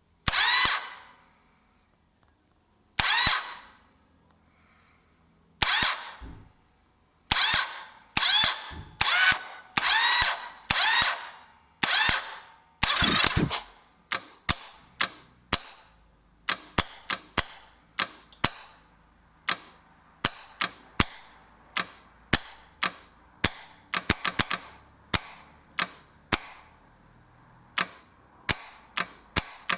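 Electric starter of a 1998 Yamaha Virago XV1100 operated over and over without the engine starting. The first several tries give short, ringing metallic whirs of under a second each. From about halfway, each press brings only a sharp click, one or two a second.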